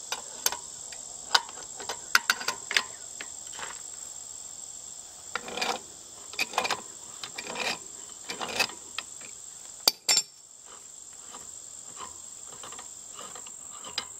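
Pipe wrenches clinking, knocking and scraping on a galvanized steel well pipe as a fitting is unscrewed. The metal clicks are scattered, with some longer rasping strokes in the middle and two sharp clanks around ten seconds in. A steady high chorus of crickets runs underneath.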